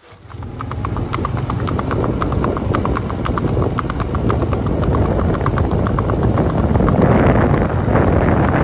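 Horse's hooves on a paved road in a quick, even clip-clop, several strikes a second, as the paint gelding moves at a brisk gait. A steady low rumble runs underneath.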